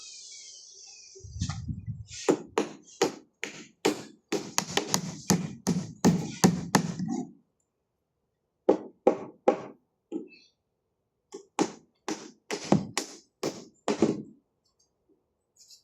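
A steady series of sharp knocking blows, two or three a second, in two runs with a short pause just after the middle.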